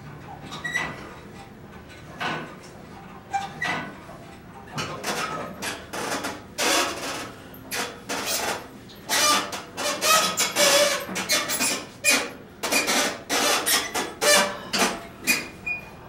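A run of knocks, creaks and short squeaks from a padded workout bench as a person shifts and exercises on it, few at first and coming thick and fast in the second half.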